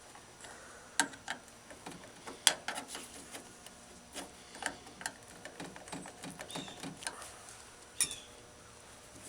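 Irregular clicks, taps and light knocks of hand tools and window-track hardware being worked into a 1960 Ford F100's door, with a few sharper knocks scattered among them.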